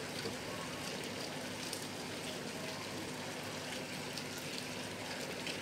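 Steady rain falling, an even hiss with scattered faint drop ticks.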